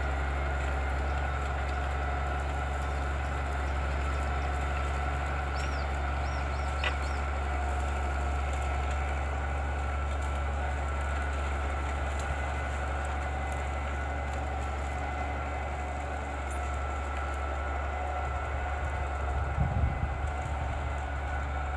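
Valtra 1780 tractor's diesel engine running steadily under load while ploughing. A bird chirps briefly about six seconds in.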